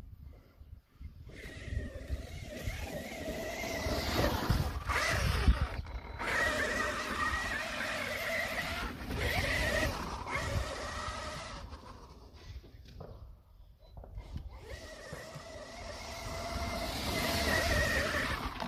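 Losi Super Baja Rey 1/6-scale RC truck's brushless electric drivetrain whining as it drives over grass, the pitch and loudness rising and falling with the throttle. The whine dies down for a couple of seconds past the middle, then builds again near the end.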